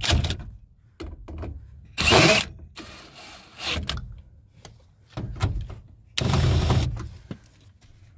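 Power drill with a socket bit run in several short bursts, driving bolts tight into the sliding door's inner steel panel, with small clicks between the runs; the longest and loudest run comes near the end.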